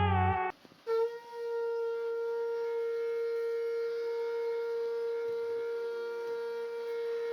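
A wind instrument holding one long steady note that starts about a second in, just after guitar music cuts off.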